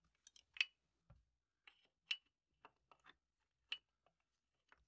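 Ratchet and socket backing out loosened cylinder head bolts on a 5.7L Hemi: about a dozen faint, sharp metallic clicks and clinks at uneven intervals.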